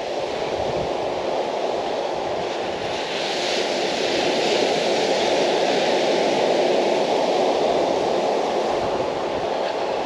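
Rough sea surf breaking and washing up a sand-and-pebble beach: a steady rush of waves that swells a few seconds in and eases slightly near the end.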